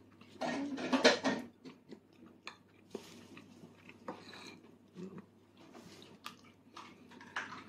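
A toddler's quiet eating sounds: faint chewing and small scattered taps and clicks of fingers and food against a plastic bowl, with a short murmur of a voice near the start.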